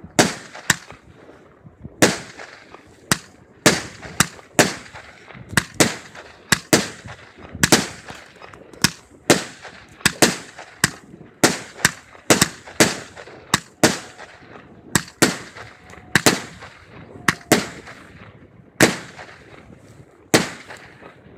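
Aerial fireworks bursting overhead: a long, uneven run of sharp bangs, about one to two a second, each followed by a short echoing tail, spacing out toward the end.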